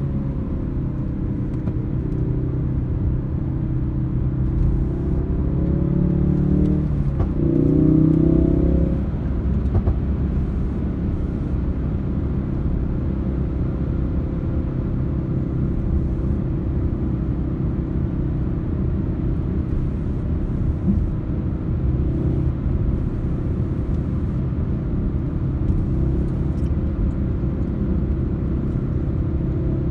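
Ford Focus RS's turbocharged 2.3-litre four-cylinder engine and tyre noise heard inside the cabin while cruising at highway speed, a steady low rumble. About a quarter of the way in, the engine note gets louder and shifts in pitch for a few seconds before settling again.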